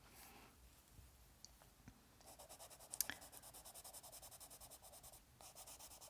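Caran d'Ache Supra watercolor pencil scratching on sketchbook paper as a surface is shaded in quick, even back-and-forth strokes. The strokes start about two seconds in and break off briefly about five seconds in.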